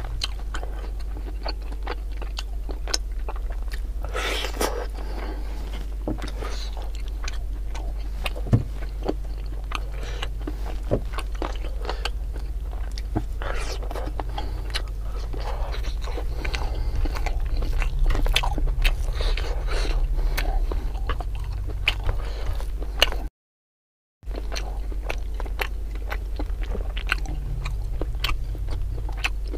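Close-up chewing and biting of chicken and rice eaten by hand, with crunchy bites and small wet clicks, over a steady low hum. The sound drops out completely for about a second about two-thirds of the way through.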